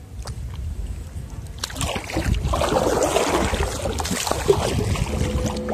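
Water sloshing and splashing against a kayak hull, louder from about two seconds in, over a steady low rumble of wind on the microphone.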